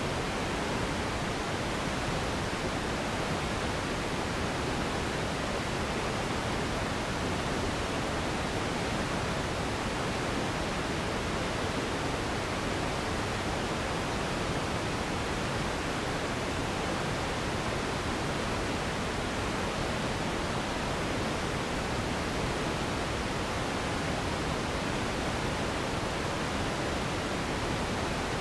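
Steady relaxation noise for sleep: an even, unchanging hiss with no rhythm or events, fuller in the lows and mids and thinning in the highs.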